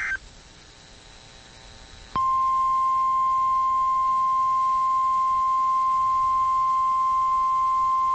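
The last of a SAME digital header burst cuts off right at the start, followed by about two seconds of faint radio hiss. Then the NOAA Weather Radio 1050 Hz warning alarm tone comes on abruptly and holds as one steady, loud tone.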